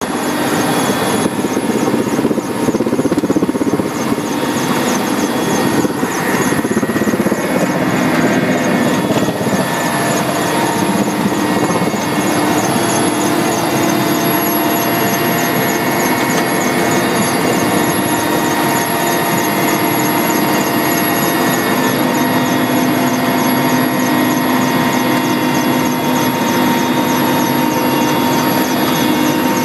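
Helicopter in flight heard from inside its cabin: the engine and rotor running steadily in a loud, unbroken drone with several steady tones over it.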